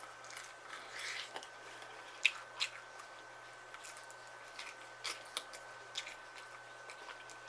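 Quiet eating of fried chicken wings: scattered soft bites, crunches and mouth clicks.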